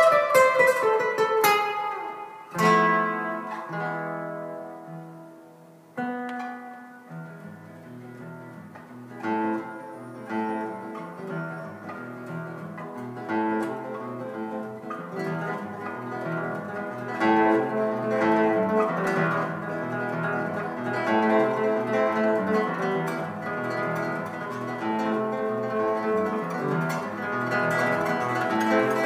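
Solo acoustic guitar. A few strummed chords ring out and die away, then a steady picked melody takes over and grows louder toward the end.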